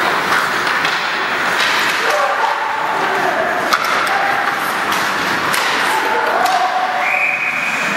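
Ice hockey play in an arena: sharp clacks and knocks of sticks, puck and boards over a steady background of players' and spectators' voices, with shouts in the middle. About seven seconds in, a steady high whistle starts, the referee's whistle.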